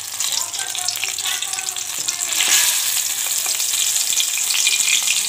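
Hot oil sizzling and crackling around besan-battered tomato chops deep-frying in a kadai, with a metal spoon stirring them; the sizzle grows louder a little over two seconds in. The chops are fully fried and ready to be lifted out.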